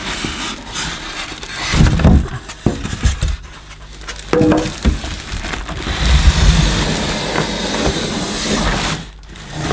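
Plastic wrapping crinkling and a cardboard box scraping and rubbing as a bagged upright vacuum cleaner and its packing are pulled out of the carton. It is heavier about two seconds in and again through most of the second half.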